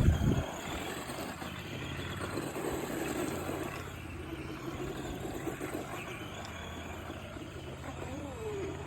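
Radio-controlled car's motor whining steadily as it drives on dirt, its pitch wavering down and up near the end. A few knocks are heard right at the start.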